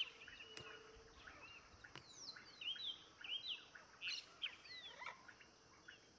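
Faint chorus of wild birds: many short chirps and quick falling whistle notes, overlapping and repeating.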